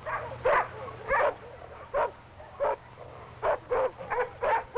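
A dog barking repeatedly: about eight short, sharp barks spaced half a second to a second apart.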